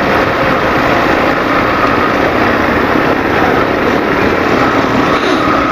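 Yamaha Factor 150's single-cylinder engine running steadily while riding, mixed with a steady rush of wind over the camera microphone.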